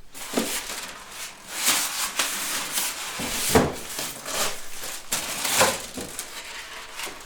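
Packaging being handled and pulled out of a box: irregular rustling and scraping with a few light knocks.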